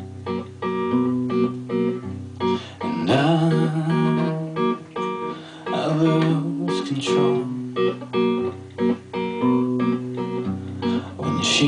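Acoustic guitar strummed in a steady rhythm, moving through a few chord changes.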